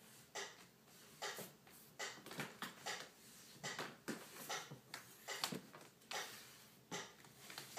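High-heeled tango shoes clicking on hardwood floorboards as a dancer steps and pivots: an irregular series of sharp taps, about two to three a second.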